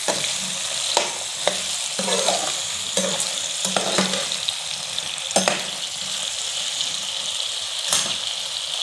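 Sliced potatoes sizzling steadily as they fry in hot oil in a pan, with a slotted spoon scraping and knocking against the pan several times in the first half as they are stirred. After that the sizzle goes on alone, with one more knock near the end.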